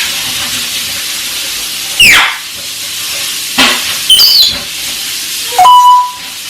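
African grey parrot whistling and squawking: a sharp falling whistle about two seconds in, a second sweep shortly after, a high whistle past four seconds, and a short steady beep-like tone near the end, over a steady hiss.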